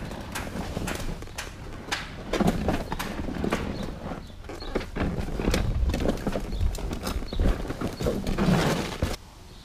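Wheeled trash bin rolled over concrete walkway and sidewalk, its wheels rattling and knocking on the uneven slabs with a low rumble. The rolling stops near the end.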